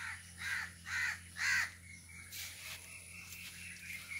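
A crow cawing four times in quick succession, about two caws a second, the last caw the loudest.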